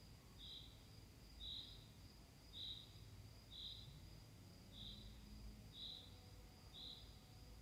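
Faint chirping insect: a short, high chirp repeating evenly about once a second, over a faint steady high whine, in an otherwise near-silent room.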